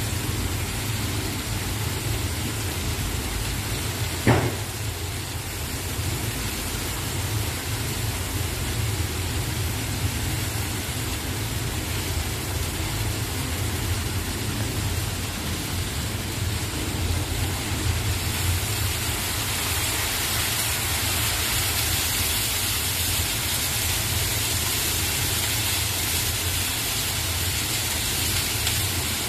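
Carrots and meat sizzling steadily in oil in a large kazan, the pilaf base (zirvak) frying, over a low rumble. There is a sharp knock about four seconds in, and the sizzle grows brighter about halfway through.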